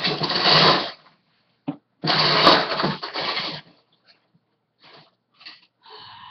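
Two loud bursts of rustling and rattling, about a second each, from objects being handled, followed by a few faint clicks.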